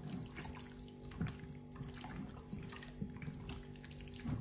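Raw chicken wings being squeezed and mixed by hand in a thick yogurt and pomegranate-molasses marinade in a glass bowl: irregular wet squelching and squishing.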